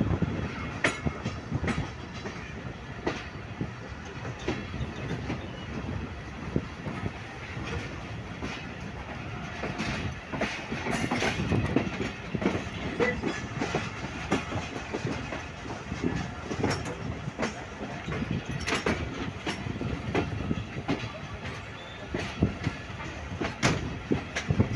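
A train running along the track, its wheels clattering irregularly over the rail joints.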